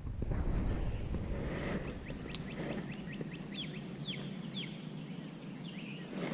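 Pond-side ambience: a steady high-pitched insect drone, with a bird calling a few short downward-slurred notes about midway. A low rumble in the first second and a single sharp click a little later.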